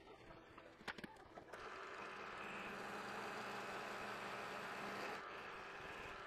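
A couple of quick clicks about a second in, then a milling machine's end mill cuts the end of a metal workpiece held in the vise for about five seconds: a steady machine hum with a faint high whine that stops abruptly at the end.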